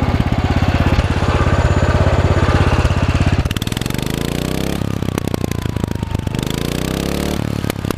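John Deere 112 lawn tractor's single-cylinder engine running at a steady fast speed, then revved twice from about halfway through, rising in pitch each time.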